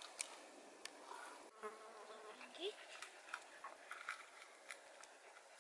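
A flying insect buzzing briefly, close by, about a second and a half in, over faint rustling with scattered small ticks in the moss and undergrowth.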